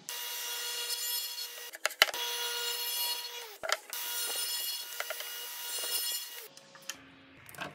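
King Industrial 12-inch radial arm saw running at speed and cutting into a wooden beam: a steady whine with cutting hiss. The sound breaks off sharply twice with a click, and dips to a quieter, lower sound for about a second near the end.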